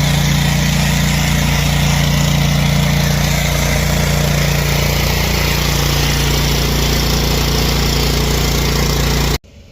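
Pressure washer's engine running steadily under an even hiss of water spray; the sound cuts off abruptly near the end.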